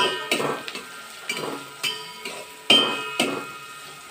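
Metal spoon scraping and knocking against a stainless steel pot while onions and garlic paste are stirred in hot oil. The knocks come about twice a second and each rings briefly, over a faint sizzle.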